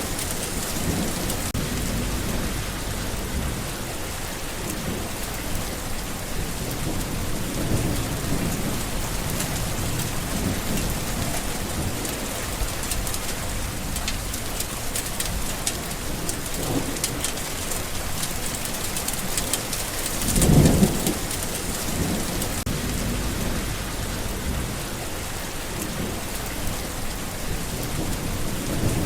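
Steady heavy rain falling, with low rolls of thunder rumbling several times, the loudest about two-thirds of the way through.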